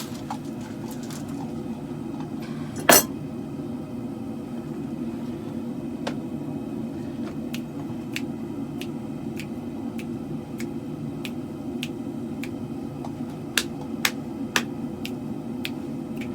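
Two-burner propane forge running with a steady rushing noise, with scattered light metallic clinks and one sharper metal strike about three seconds in.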